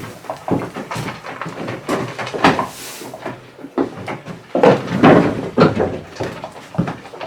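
Irregular knocks, clatters and rustling from feeding goats in a goat shed: gear, doors and hay being handled, with a few louder clattering stretches about midway.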